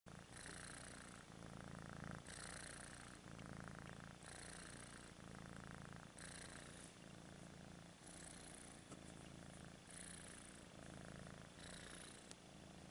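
A tabby kitten purring steadily while being stroked. The purr changes sound with each breath in and out, about every two seconds.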